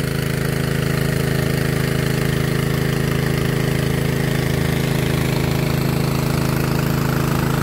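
Small engine of a 3-inch 'alkon' water pump running at a steady speed, pumping flushing water down the drill pipe of a hand-drilled borehole.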